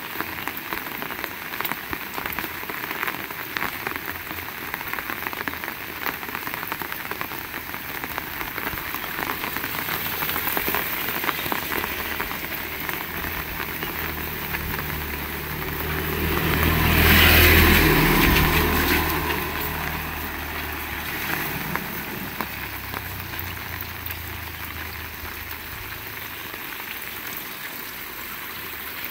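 Heavy rain falling steadily, a dense patter of drops. A little past halfway, a motor vehicle passes: a low engine hum swells to the loudest moment and then fades away.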